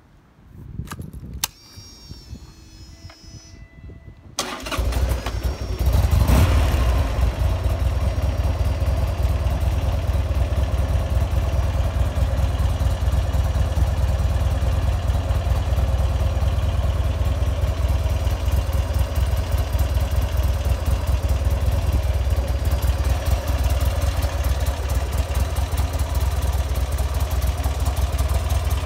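Buell XB9S Lightning's air-cooled V-twin started: after a few clicks, the starter cranks about four seconds in, the engine catches with a short rev and settles into a steady idle.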